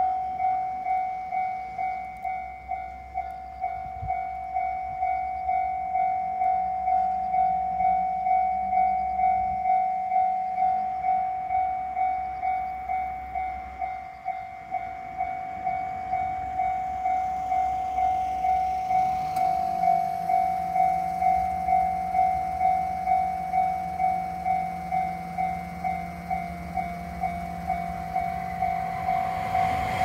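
Japanese level-crossing warning bell ringing in a quick, even rhythm, each electronic ding fading before the next. From about two-thirds of the way in, a low hum from the approaching Yamagata Shinkansen train joins it.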